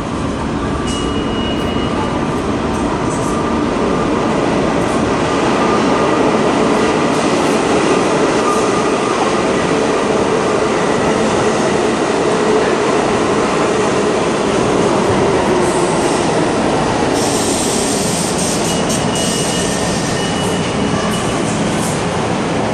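R32 subway train pulling into the station: the steady rumble of wheels and motors builds over the first several seconds as it comes alongside. Thin high wheel squeals sound on the curved track, and a burst of hiss starts about seventeen seconds in as it slows.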